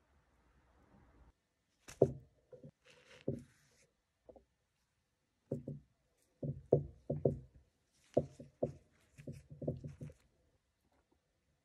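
Irregular dull knocks and taps on a wooden chopping board as a spoon spreads soft cheese and toppings are set on schiacciata bread. They come in clusters, with the busiest stretch in the second half.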